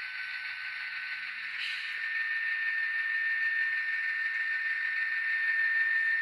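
Diesel engine sound from an N scale GP30's DCC sound decoder, played through its tiny onboard speaker as the locomotive backs up: a thin, hissy engine sound with a steady high whine, getting louder about two seconds in.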